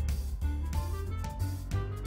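Instrumental music: a stepping melody over a steady bass line and a regular drum beat.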